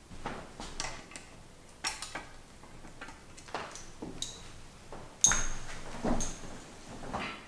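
Metal bike parts and tools being handled: irregular clinks, taps and knocks. A sharp metallic clink a little past the middle, with a brief ring, is the loudest.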